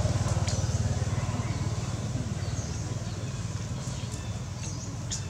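A motor vehicle engine running with a steady low rumble that slowly fades, with a few faint, short, high squeaks over it.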